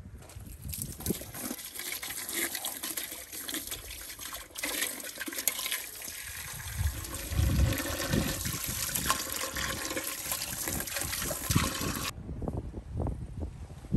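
A stream of water pouring into a large aluminium pot, splashing over the cloth and the lids of glass jars as the pot is filled around them. The pouring runs steadily and then stops suddenly near the end.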